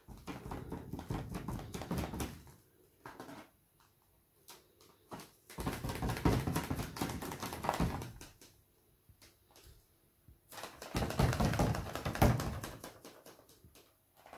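Paint-covered balloon dabbed and pressed repeatedly against a canvas, the rubber tapping and squeaking in quick runs. Three bouts of a couple of seconds each, with quiet pauses between.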